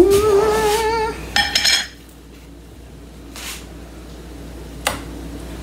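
Pineapple juice poured from a can into a container, its ringing tone rising slowly as the container fills for about a second, followed by a short metallic clink of the can.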